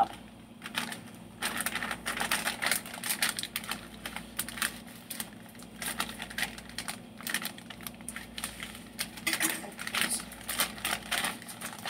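Plastic wrapper of a package of dry spaghetti crinkling and crackling in the hands as it is handled and pulled open: an irregular run of many small crackles and rustles.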